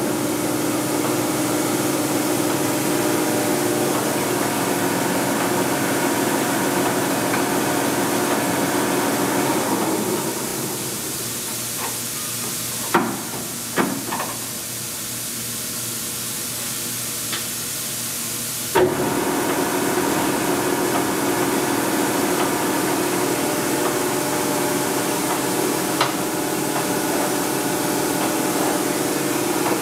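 Blanchard 22K-42 rotary surface grinder running its rotary magnetic chuck table through a couple of table speeds: a steady machine hum that drops away about ten seconds in, with a few clunks, then comes back with a sharp clunk just past halfway.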